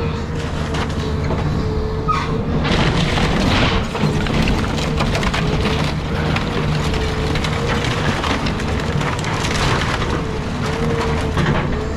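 Caterpillar 323 hydraulic excavator running under load with a steady whine, while house framing cracks and splinters repeatedly as it is torn apart.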